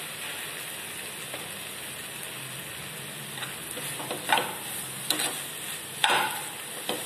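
Potato and capsicum curry sizzling in a frying pan while a slotted metal spatula stirs it, scraping and knocking against the pan. The scrapes come from about three seconds in, loudest a little after four seconds and around six seconds.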